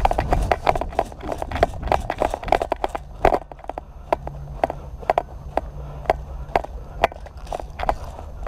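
Quick footsteps crunching on a gravelly dirt track, about three steps a second, heard from a head-mounted camera.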